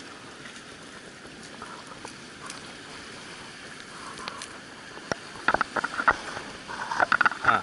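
Steady wash of sea surf on the rocks. From about five seconds in there is a quick series of sharp clicks and rattles as the landed seabass is handled in a metal fish grip, with the lure hanging from its mouth; the clicks are loudest near the end.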